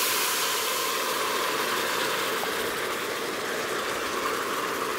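Taiwanese rice wine poured into a hot stockpot over seared ginger and spring onion, sizzling and boiling hard with a loud, steady hiss that eases slightly: the alcohol bubbling off.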